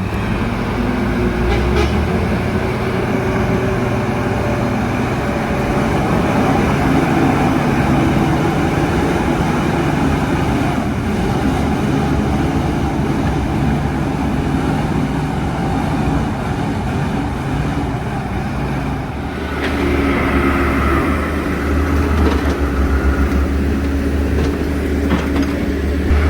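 Heavy truck's diesel engine running hard without pause, its note shifting about 19 seconds in.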